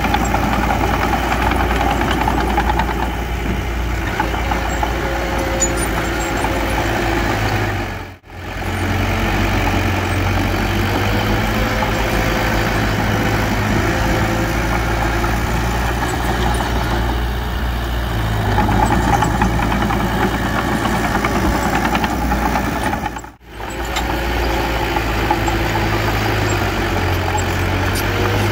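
Diesel engine of heavy earthmoving machinery running steadily. The sound drops away briefly twice, about 8 and 23 seconds in, and comes straight back.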